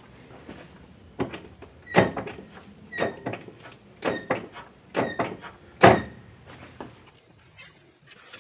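Brake pedal pumped several times, about once a second, each stroke a knock, some with a short squeak, as the brake caliper piston is pushed back out against the new pads.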